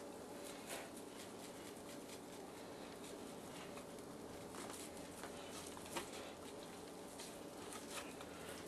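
Dry BBQ rub being sprinkled onto raw chicken drumsticks and thighs and patted in by hand: faint light pattering with a few soft clicks, the sharpest about six seconds in, over a low steady hum.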